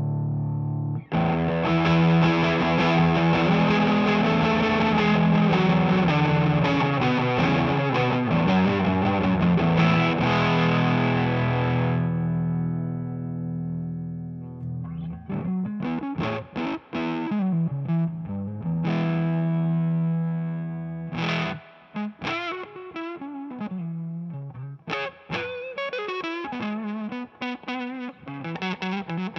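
Electric guitar with single-coil pickups played through a Big Muff-style fuzz pedal (O.C.E. Hammer), heavily fuzzed. A big chord is struck about a second in and rings with long sustain until it dies away around halfway. Then come short, choppy chords and riff notes with brief silences between them.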